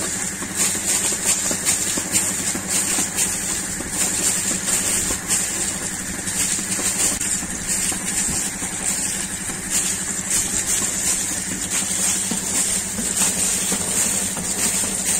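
Water and air gushing from the end of a plastic delivery pipe fed by a compressor-driven air-lift borewell pump, with a steady hiss and uneven surges over the low, steady hum of the 5 HP air compressor running.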